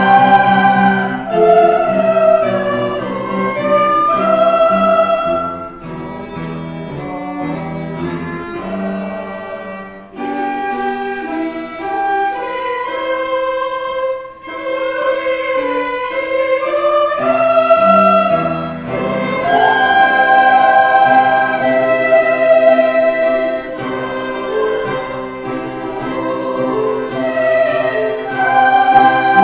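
Church choir singing with instrumental accompaniment, in long held notes.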